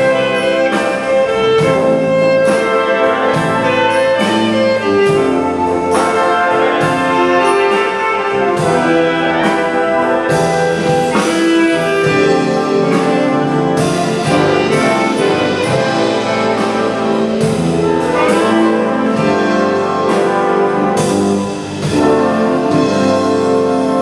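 Symphonic wind band playing live: brass and saxophones sounding full sustained chords over moving lines, with percussion accents. Briefly quieter near the end before the full band comes back in.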